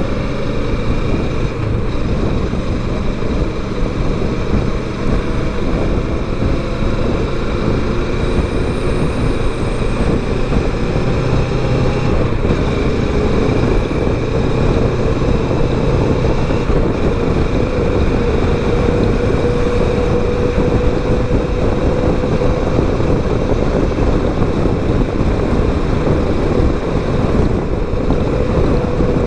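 Kawasaki Versys 650 parallel-twin engine running while cruising on the road, heard from the rider's helmet camera, with wind rush on the microphone. The engine note holds fairly steady and climbs slowly.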